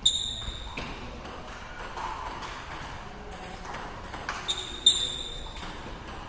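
A table tennis ball clicking off paddles and the table during a rally, each hit a sharp, ringing ping. The loudest hits come right at the start and about five seconds in, with a quick cluster of three just before that.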